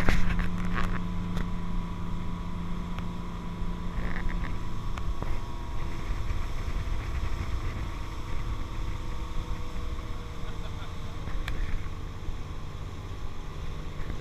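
Motorboat engine running steadily at towing speed, with the rush of the churning wake and wind noise.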